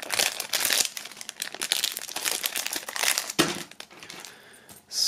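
Thin clear plastic bag crinkling and rustling as a metal keychain is worked out of it, the crinkling thinning out about three and a half seconds in, with a soft knock around then.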